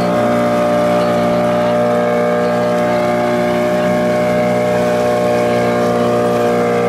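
Motorboat engine running at a steady speed, a constant hum of even tones with no change in pitch.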